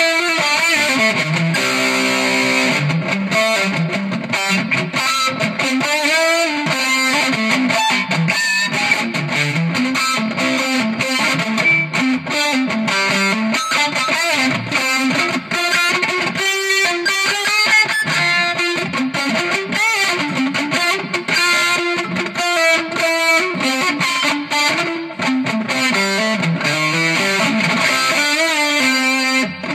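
Electric guitar being played: a continuous improvised lead line, its notes bending and sliding in pitch.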